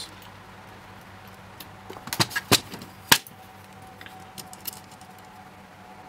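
A handful of sharp little metallic clicks and ticks, bunched about two to three seconds in with the loudest just after three seconds, then a few faint ticks: steel tweezers picking tiny brass lock pins out of a plastic pin-kit tray.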